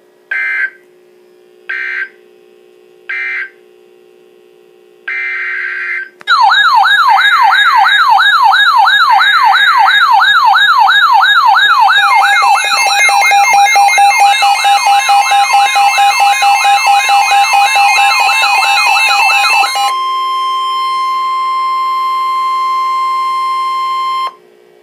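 Emergency Alert System data and alert tones. First come three short screechy digital data bursts, the end-of-message code of the flash flood warning, then one longer burst. About six seconds in, a loud siren-like alert tone starts, warbling rapidly up and down several times a second; about halfway through, steady tones join it. Near the end it gives way to a steady single-pitch tone that cuts off sharply.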